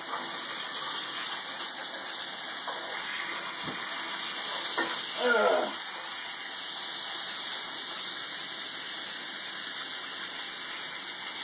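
Meat sizzling steadily as it sears in a hot cast-iron skillet, a continuous even hiss. A short vocal sound about five seconds in.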